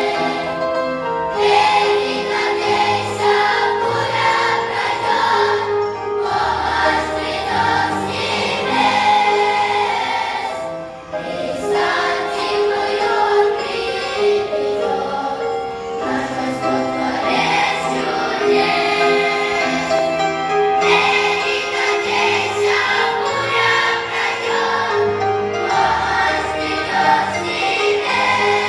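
A large children's choir singing a Russian-language hymn, with accompaniment carrying low bass notes under the voices. There is a short breath between phrases about eleven seconds in.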